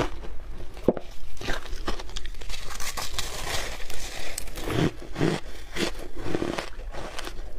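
Shaved ice mixed with milk powder being bitten off a handful and chewed: crisp crackling as the ice is bitten, then a run of separate crunches as it is chewed in the second half.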